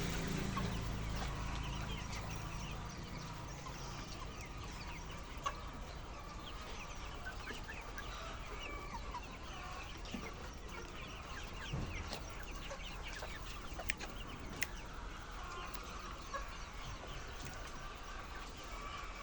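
A large flock of chickens clucking and calling together, a dense overlapping chatter of short calls, with a few sharp clicks.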